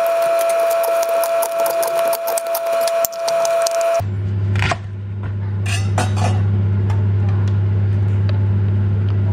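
Kitchen knife cutting leeks on a plastic cutting board: a quick run of clicks over a steady high tone for about four seconds. Then a steady low hum with a few knocks as the cut pieces are handled.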